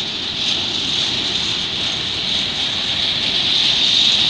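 Freight train of bogie hopper wagons rolling past on the rails: a steady rushing noise with a high hiss over it, growing louder toward the end.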